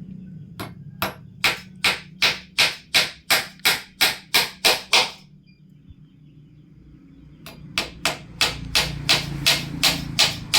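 Hammer driving a nail into a wooden frame, sharp evenly spaced strikes about three a second, stopping for about two seconds midway and then starting again.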